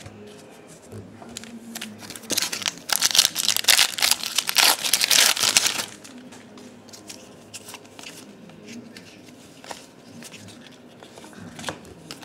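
A foil baseball card pack (Topps 2012 Series 2) is torn open and crinkled, a loud crackling that starts about two seconds in and lasts about three and a half seconds. Softer rustling and flicking of the cards follows as they are handled.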